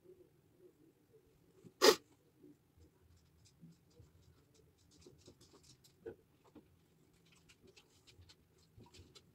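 A sharp knock about two seconds in, then faint scattered clicks, taps and rustles of small objects being handled, such as makeup items and the phone.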